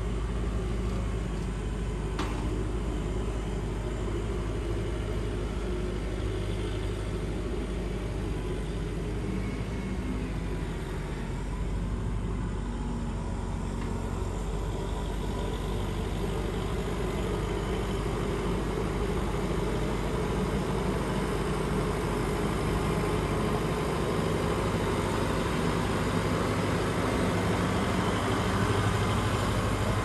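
Kubota tractor's diesel engine running steadily, getting a little louder near the end, with one brief click about two seconds in.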